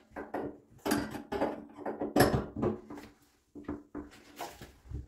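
Small metal shower-tap fittings knocking, clicking and scraping as they are handled and fitted onto the tap spindle at the wall: a string of short, irregular knocks.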